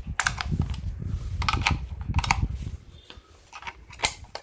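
AA batteries being loaded into a plastic RC transmitter's battery compartment: a run of small plastic clicks and clatter, with a sharp click about four seconds in.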